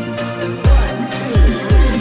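Electronic dance music with deep pitch-dropping bass kicks and held synth notes.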